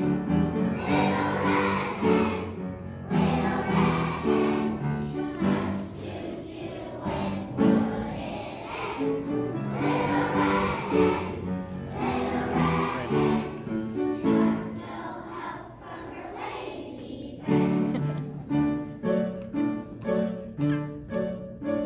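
A class of kindergarten children singing a song together as a choir.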